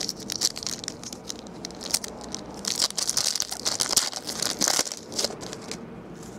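Foil wrapper of a 2012 Prime football card pack being torn open and crinkled by hand: a run of crackling, rustling tears, loudest from about two and a half to five seconds in.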